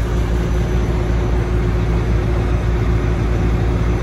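Semi-truck diesel engine and road noise heard from the cab while driving on the highway: a steady low drone with a constant hum.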